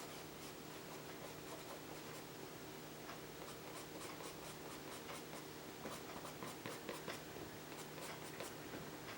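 Pastel pencil scratching across textured vellum-surface mixed media paper in quick short strokes, coming thick and fast through the second half, over a faint steady hum.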